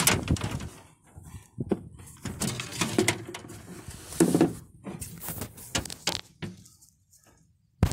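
Handling noise from a phone held against a hand: scattered knocks, bumps and scrapes of skin rubbing over the microphone, going quiet shortly before the end.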